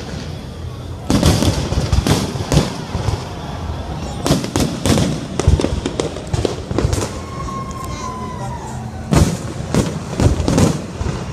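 Aerial fireworks bursting in rapid clusters of sharp bangs and crackles, coming in three volleys about a second in, in the middle and near the end.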